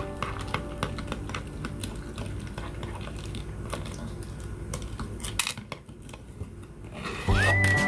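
Light, irregular clicks and taps of small kitchen utensils being handled, over a low steady rumble. About seven seconds in, background music starts with a whistle-like tone gliding up.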